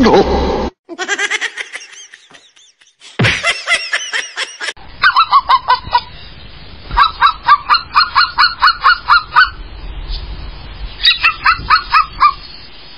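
A toy robot husky dog yapping electronically in rapid, honk-like barks, about five a second, in three bursts. A few longer pitched cries come before it.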